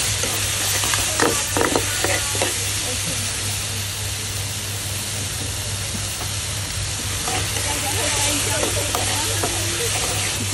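Vegetables sizzling in hot oil in a small metal pan while being stirred and scraped with a metal ladle, the ladle clinking against the pan in the first few seconds and again in the second half. A steady low hum runs underneath.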